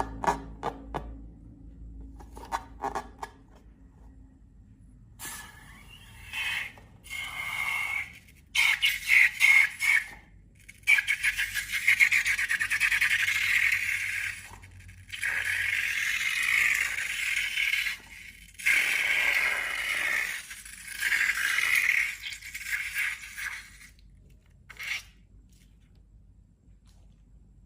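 Scraping and crackling in bursts of a few seconds each, with short gaps between, as slime-making materials are worked by hand.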